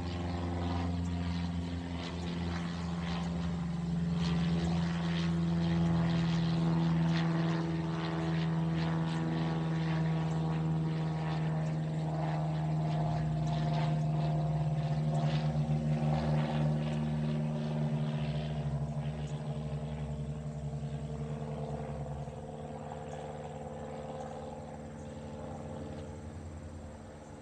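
Cessna 172 Skyhawk's single-engine propeller drone during a flyover: a steady hum that builds to its loudest in the middle of the pass, then fades as the plane moves away.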